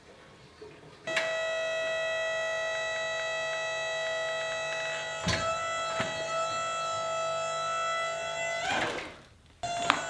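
Background music: a steady held chord of sustained tones that starts about a second in, drops out briefly near the end and comes back.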